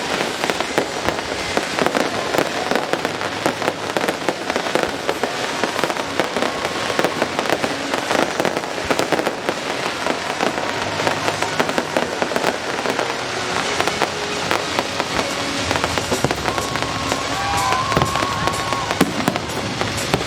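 Fireworks display: a dense, unbroken crackle of many pops and bangs a second.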